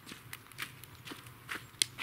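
Footsteps of a person walking over thin snow and wet leaves while carrying a heavy cast-iron kazan: a series of irregular, unhurried steps, with one sharper step or knock near the end.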